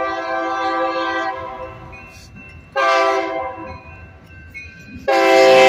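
Union Pacific SD70M diesel locomotive's horn sounding its grade-crossing signal as it approaches. A long blast ends near the start, a short blast follows about three seconds in, and the final long blast begins about five seconds in.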